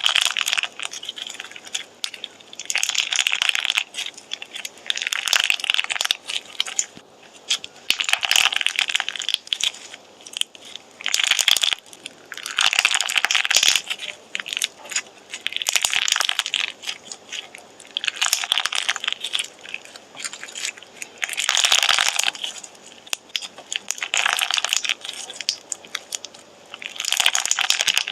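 Slime being squeezed and pressed by hand, crackling with many small pops in bursts that come every two to three seconds.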